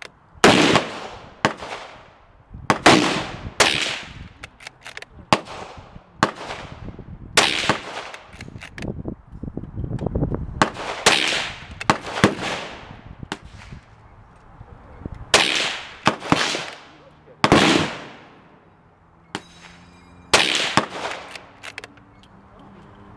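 Rifle shots from a Marlin 783 bolt-action .22 WMR: about a dozen sharp, loud reports one to four seconds apart, each trailing off in echo. Fainter shots from neighbouring shooters fall in between.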